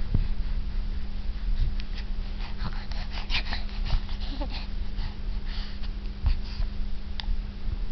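An 11-week-old baby's breathy grunts, snorts and wheezy little noises, with one short squeak about four and a half seconds in, over a steady low hum.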